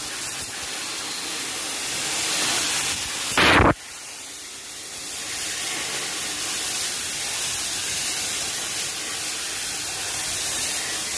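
Steady hiss, with one loud, short burst a little over three seconds in that cuts off suddenly. After it the hiss drops lower and slowly builds back up.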